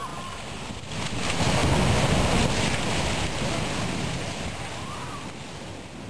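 Tsunami water surging and breaking, heard as a steady rushing noise of water that swells about a second in and then slowly eases off.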